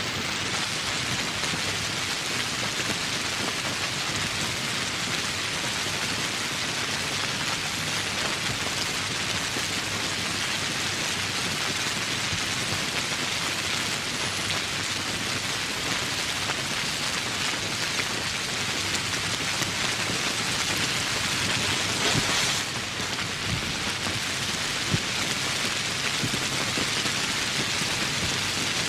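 Steady rain falling in woodland, a dense even hiss of drops, swelling briefly about three-quarters of the way through.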